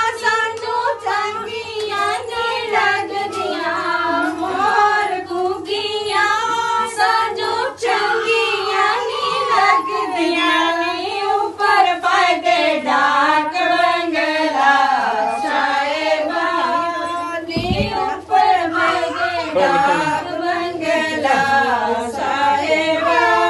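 Several women singing a melody together, unaccompanied and without a beat, as part of a wedding ritual.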